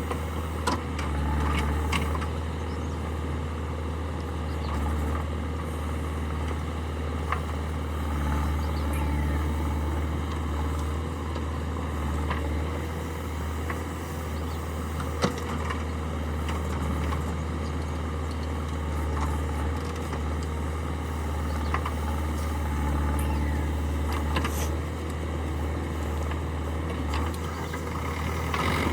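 Heavy diesel machinery running steadily with a constant low drone. A few sharp knocks or clanks stand out, the loudest about halfway through.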